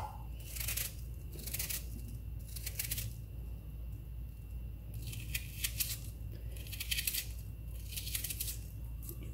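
A knife slicing through a raw red onion held in the hand, each cut a short, crisp crunch. The cuts come in quick clusters about a second apart, with a pause of a couple of seconds in the middle.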